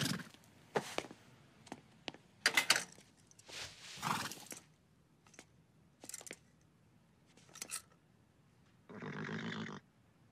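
Cartoon horse sound effects: a short horse cry about four seconds in, scattered clicks and knocks as a gas pump nozzle is handled, and a steady noisy sound lasting just under a second near the end.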